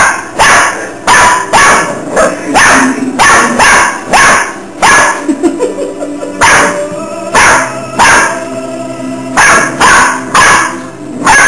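A dog barking repeatedly in short, sharp barks, often two or three close together, with a pause of about a second and a half partway through.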